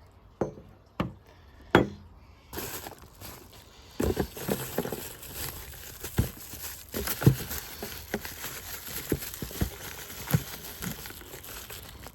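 Parts of a motorcycle tail tidy kit being handled out of their packaging. A few sharp knocks come first, then from about two and a half seconds in a steady rustle and crinkle of plastic wrapping, with small knocks all through.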